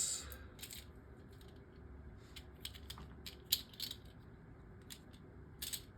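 Scattered light clicks and taps of small plastic Beyblade Micros tops and parts being handled and set up, a cluster of them a few seconds in.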